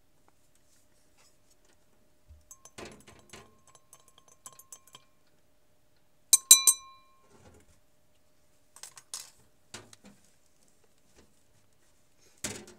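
Glass clinking and rattling, a few small clinks at a time, with one sharp, ringing clink about six seconds in that is the loudest; more clatter follows near the end.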